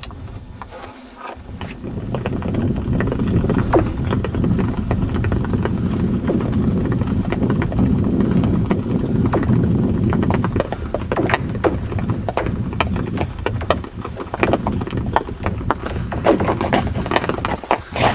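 Ice skates running over frozen lake ice: a steady low rumble from the blades that sets in about two seconds in, with many sharp clicks and cracks through it.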